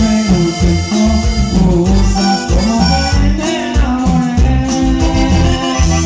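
A live band playing accordion-led Mexican dance music, with a pulsing bass line and a steady cymbal beat.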